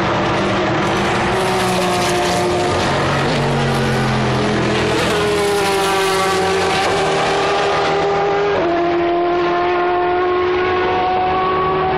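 Endurance race cars' engines running hard on the circuit, several at once. About five seconds in, one engine's pitch climbs, and later the pitch jumps suddenly upward.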